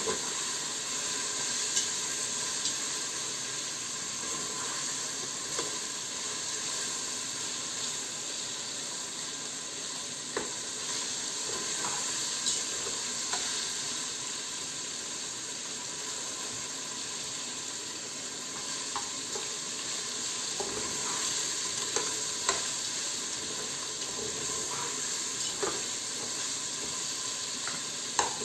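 Cubes of chicken sizzling in hot oil in a pressure cooker, a steady hiss, with scattered clicks and scrapes from a metal slotted turner stirring them against the pan's bottom.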